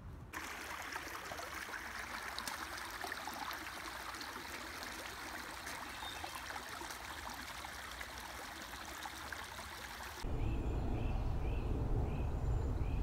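Shallow creek water running over a stony bed: a steady hiss. About ten seconds in it changes abruptly to a deeper low rumble with a few short chirps.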